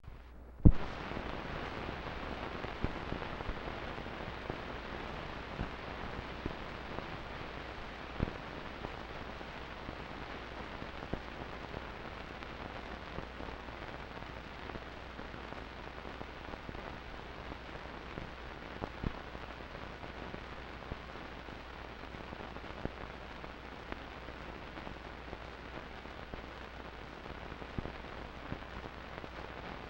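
Steady hiss with a low hum underneath and scattered crackles and pops, a loud pop about half a second in: the background noise of an old film transfer, with no band music or crowd heard.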